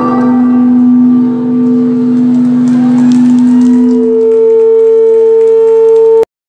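Traditional Chinese instrumental ensemble music ending on long held notes. A low note sustains for about four seconds, then a note an octave higher holds until the sound cuts off suddenly near the end.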